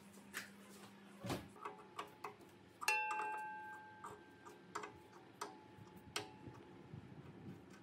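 Steel open-end wrench clinking against a rusty pipe fitting and the steel plate of an old air compressor tank: scattered sharp clicks, and one louder strike about three seconds in that rings with a clear metallic tone as it fades.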